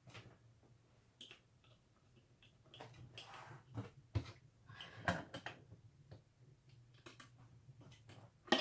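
Faint clicks and short scrapes of the screw being turned by hand into the top cover of a BC-611 Handie Talkie radio, with a sharper click near the end.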